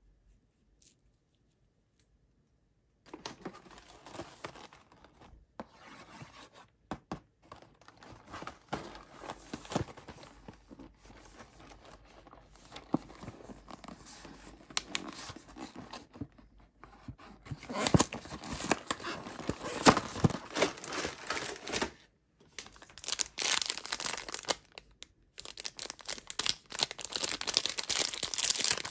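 Snack packaging handled and torn open by hand: plastic and foil wrappers crinkling and tearing in irregular bursts, louder in the second half, after about three seconds of near silence. Near the end a foil fruit-snack pouch is torn open.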